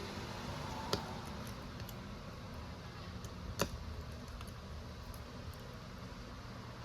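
Two light clicks, about a second in and a little past three and a half seconds, over a steady low hum.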